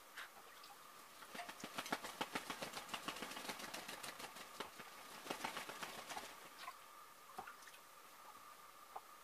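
Muscovy drake dabbling with its bill in a bowl of wet feed or water: a faint, rapid run of small wet clicks from about a second in until about six seconds in, then fading to a few scattered clicks.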